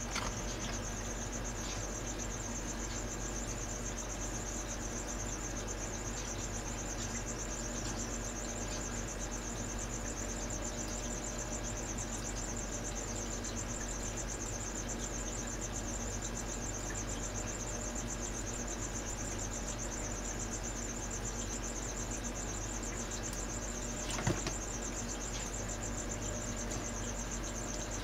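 Continuous high-pitched, rapidly pulsing chirring like crickets, over a steady low hum, with a single knock about 24 seconds in.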